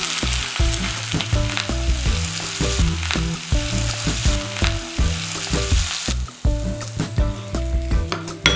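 Food sizzling in hot oil in a pan: a loud, even hiss that cuts off abruptly about six seconds in.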